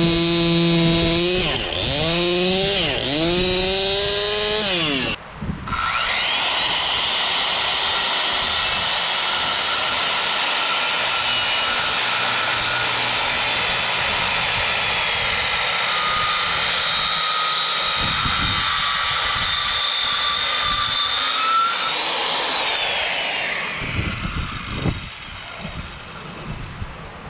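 Chainsaw running at full throttle while cutting wood, its pitch dipping and recovering as it bogs in the cut. After a sudden break about five seconds in it revs up again to a steady high whine, then winds down a few seconds before the end.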